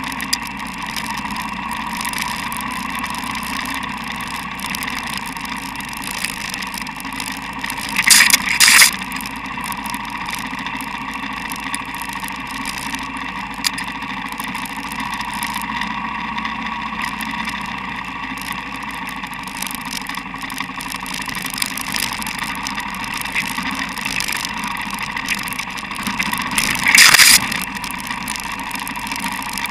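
Dual-sport motorcycle engine running steadily on a forest dirt trail, heard from a camera mounted on the bike. There are two brief, loud bursts of noise, about 8 seconds in and again near the end.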